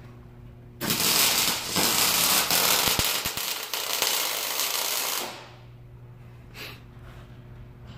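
Arc welding on a steel frame: a loud, steady crackle of the arc that starts about a second in and stops about five seconds in, over a low steady hum.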